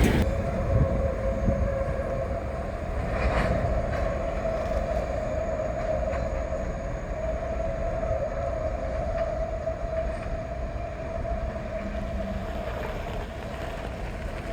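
A train running steadily: a low rumble with a steady high whine over it and a few faint clicks.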